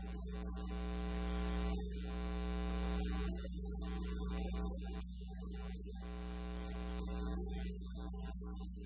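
Steady electrical mains hum: a low buzz with many overtones from the audio system, with no voice heard over it.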